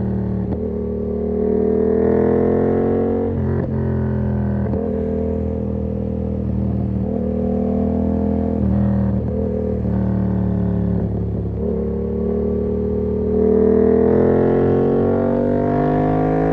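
2019 Yamaha MT-07's parallel-twin engine through an SC-Project exhaust with its dB killer fitted, on the move under throttle. The note rises steadily, drops back sharply and climbs again several times, with a long climb near the end.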